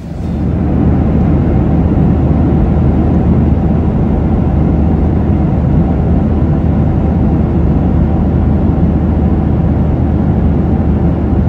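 Steady low rumble of a moving vehicle, with a constant low hum and no change in pitch or level.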